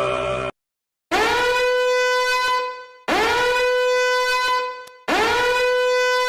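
A horn blown three times, each blast scooping up in pitch at the start, holding a steady note for about a second and a half, then fading. Just before the first blast, a droning sound cuts off abruptly.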